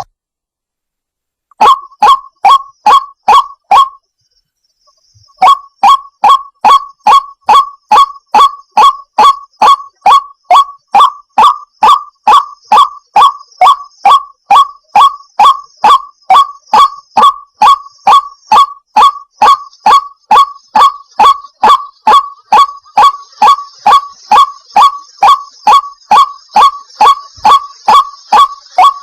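White-breasted waterhen calling: a long run of loud, evenly repeated short 'kook' notes, about two to three a second, with a short break a few seconds in before it starts again and keeps going.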